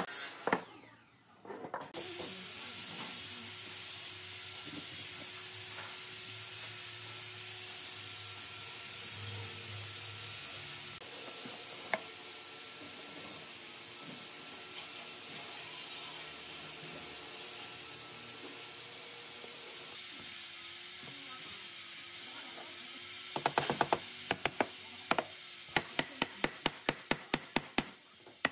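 A steady hiss with a faint steady hum under it, then over the last few seconds a quick run of light taps or clicks, about two to three a second.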